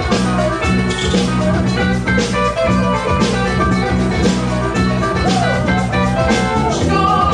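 Loud music with a steady drum beat and a repeating bass line.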